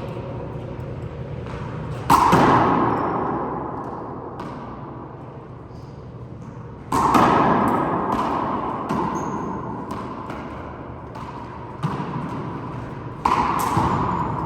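Handball rally: the rubber ball smacks against the court walls and floor in sharp hits, the loudest about two, seven and thirteen seconds in, each ringing out in a long echo.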